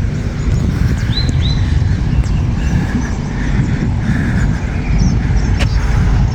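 Outdoor ambience with a steady low rumble, and two short high bird chirps about a second in.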